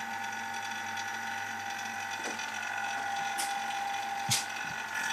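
A machine running with a steady high whine made of several fixed tones, with a few faint clicks.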